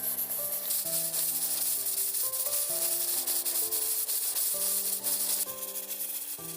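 Stir-frying in a wok: a steady sizzle with a spatula scraping and stirring, over soft background music of held notes.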